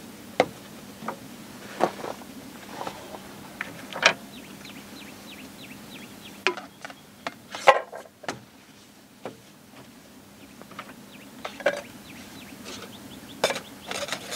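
Irregular clinks and knocks of camp-kitchen gear being handled on a tailgate-mounted table, the sharpest about halfway through. A bird calls in the background with runs of quick falling chirps.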